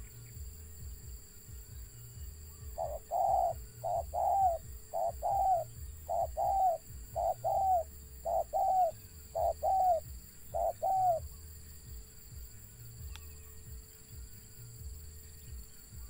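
Spotted dove cooing: about eight repeated two-part phrases, each a short note followed by a longer falling one, starting a few seconds in and stopping after about eight seconds.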